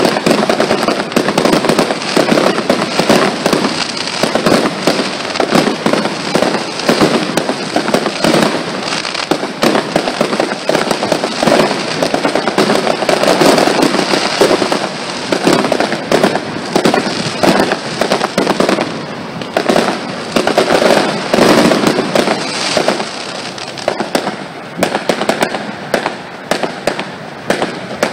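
Fireworks display: a dense, continuous barrage of rapid bangs, easing into fewer, more spaced-out bangs over the last few seconds.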